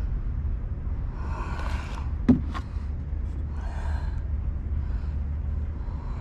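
Steady low background rumble with two heavy breaths, and one sharp knock about two seconds in.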